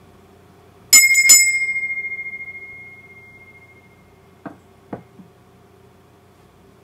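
A small high-pitched bell struck twice in quick succession, ringing out and fading over about three seconds. Two short soft knocks follow near the end.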